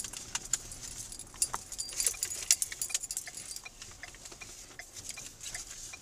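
Light metallic jangling and clicking rattles inside a car's cabin as it rolls slowly over a rough, potholed street: dense for the first few seconds, then thinning to scattered clicks.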